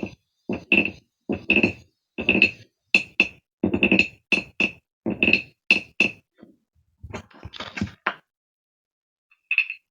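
Toy frog sounded against a piezo contact microphone: a quick run of about a dozen short, knocking croaks in the first six seconds, then a softer rasp near eight seconds.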